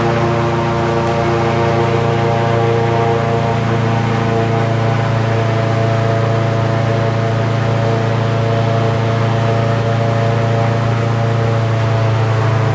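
Airboat's engine and propeller running steadily at cruising speed, a loud, even drone.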